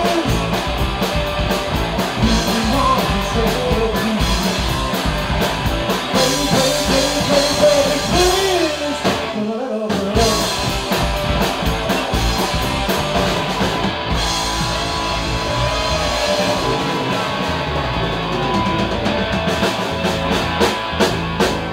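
Live rock band playing: two electric guitars, electric bass and a drum kit. The band drops out briefly about ten seconds in, then comes back, with a few hard accented hits near the end.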